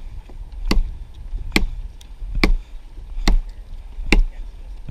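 Axe chopping into the limb of a fallen ponderosa pine: five sharp strikes at an even pace of a little more than one a second.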